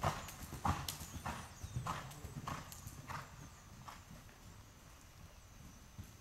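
Hoofbeats of a trotting horse on soft sand arena footing, a steady rhythm of dull thuds that grows fainter and dies away after about four seconds.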